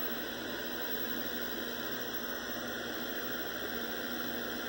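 A switched-on 1986 Montgomery Ward 13-inch colour CRT television giving a steady hiss with a low hum underneath.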